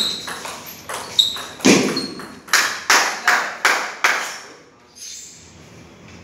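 Table tennis rally: the plastic ball clicks off the bats and pings off the table in a quick, even rhythm, a hit or bounce every few tenths of a second. A heavier thud comes about a second and a half in. The rally stops about four seconds in.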